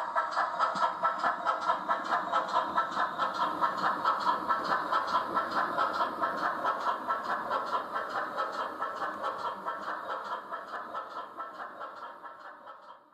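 Steam locomotive exhaust chuffing in a steady rhythm of about four beats a second, fading away and stopping near the end: small Prairie 2-6-2 tank 4560 pulling away with its train.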